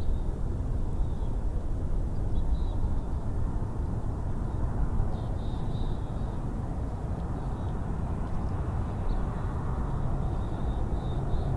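Steady, fluctuating low rumble of wind on an outdoor microphone, with faint short high chirps from small birds several times through it.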